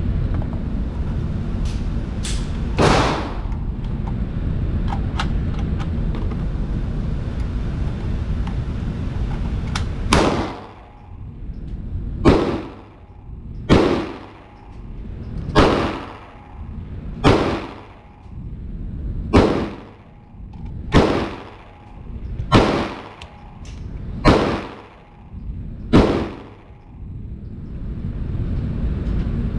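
Gunshots at an indoor range: ten sharp reports, evenly spaced about one and a half to two seconds apart, each ringing off the booth walls. Before them there is a steady low rumble with one sharp knock.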